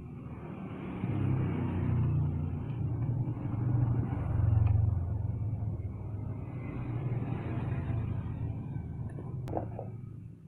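A motor vehicle engine running with a low rumble that swells from about a second in, is loudest around the middle, then settles a little lower. A single sharp click comes near the end.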